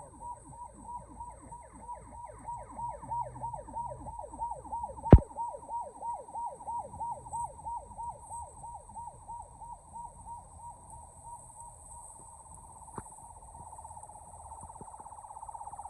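Electronic vehicle siren yelping, a quick swooping tone repeating about three times a second, that fades after about twelve seconds and gives way to a steadier rising tone near the end. There is one sharp loud knock about five seconds in.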